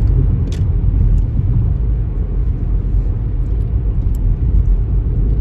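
Steady low rumble of a car on the move, with a few faint clicks.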